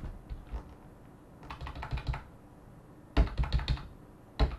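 Computer keyboard keys tapped in three short bursts of rapid clicks, the arrow keys stepping through video frames.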